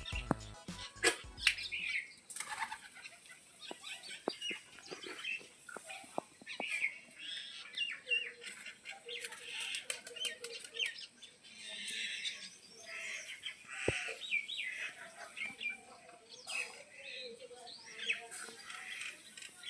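Background music cuts off about a second and a half in, leaving many short bird chirps and calls.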